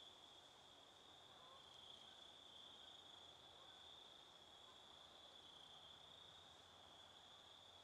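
Faint, steady, high-pitched trilling of crickets calling without a break; otherwise near silence.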